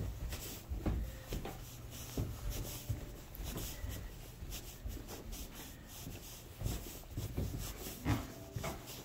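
Footsteps going down carpeted stairs: soft, irregular thumps, with rubbing noise from the handheld phone. There is a firmer step a little over 8 seconds in.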